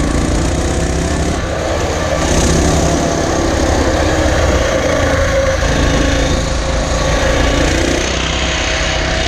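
Small single-cylinder engine of a Coleman CT200U mini bike running steadily while riding along a road, with wind noise over the microphone.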